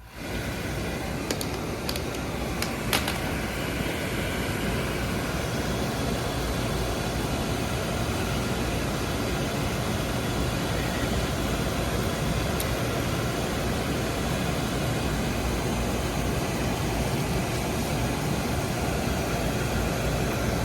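Oil burner on a boiler firing and running with a steady rushing noise from its blower and flame, with a few clicks in the first three seconds. It starts and stops abruptly, with the burner run so that its oil line can be purged and bled of air.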